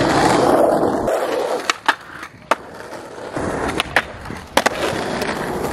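Skateboard on Thunder 148 trucks: wheels rolling on asphalt, a few sharp board clacks, then the trucks grinding along the edge of a low bench, with more clacks near the end.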